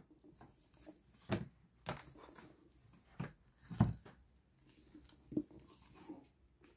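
Hardcover comic album being handled and turned over: a few soft knocks and rubs of the cover, the loudest and deepest about four seconds in.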